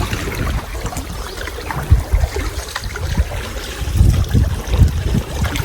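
Wind gusting on the microphone in low rumbles, over the wash and splash of water.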